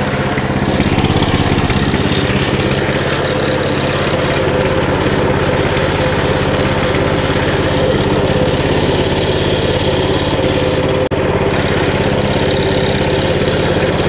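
Coleman mini bike's single-cylinder small engine idling at a steady speed while its idle is being adjusted. The sound drops out very briefly about eleven seconds in.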